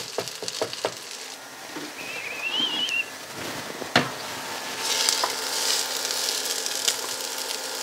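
Kimchi fried rice sizzling in a frying pan, with a spatula stirring and scraping and a few light knocks of kitchenware; a sharp knock about four seconds in. A brief wavering whistle sounds about two seconds in.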